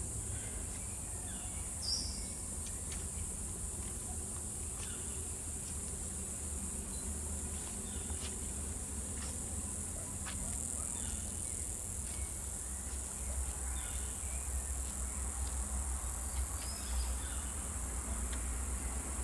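Steady high-pitched drone of a rainforest insect chorus, over a low rumble, with a few brief short chirps scattered through it.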